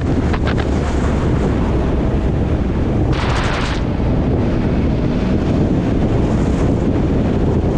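Wind buffeting the microphone on a moving motorcycle: a loud, steady low rumble, with a short burst of hiss about three seconds in.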